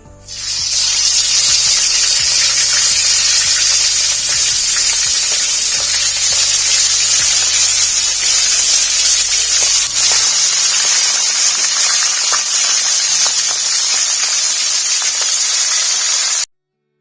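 Whole quail frying in hot cooking oil, sizzling loudly and steadily. The sizzle starts just after the birds go into the oil and cuts off suddenly near the end.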